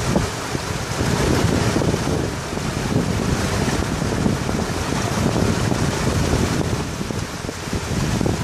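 Golf cart driving through a flooded, muddy cart path: tyres sloshing through water and mud, with wind buffeting the microphone.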